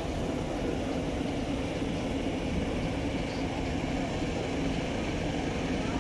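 Heavy truck hauling a low-bed trailer rolling past: steady diesel engine and tyre noise.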